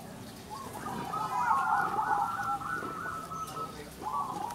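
Zebra doves (perkutut) cooing, many birds at once: overlapping runs of short, repeated coos, with a brief lull near the end.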